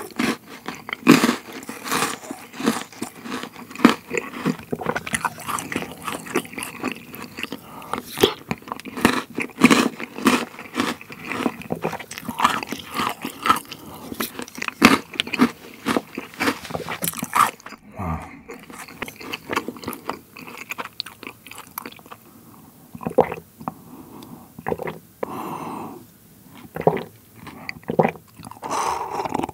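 Close-miked crunching and chewing of Maltesers, the malted honeycomb centres cracking between the teeth, with wet mouth sounds from the cold milk they are eaten in. After about 18 seconds the crunches thin out to sparse mouth sounds, and near the end the milk is sipped straight from a glass bowl.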